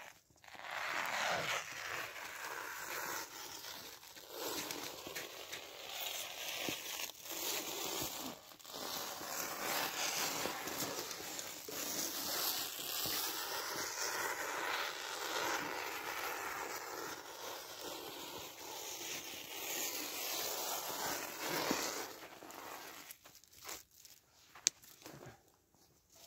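Plastic stretch film being pulled off its roll and stretched around a frame of branches: a steady crackling, peeling rustle. It stops about four seconds before the end, leaving a few faint clicks and one sharp tick.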